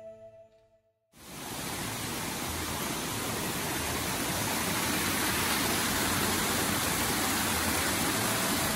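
Steady rushing of a small garden waterfall, coming in suddenly about a second in after a tinkling music track fades out.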